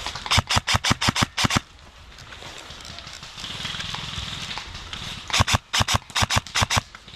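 Airsoft gun firing two quick strings of sharp shots, about eight each at roughly six a second: one right at the start, the second about five seconds in.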